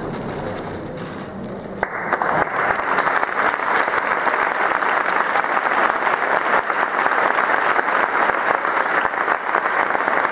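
A roomful of people applauding. The clapping starts abruptly about two seconds in and then runs on steadily.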